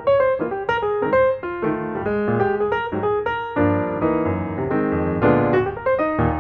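Background piano music, a continuous run of notes and chords.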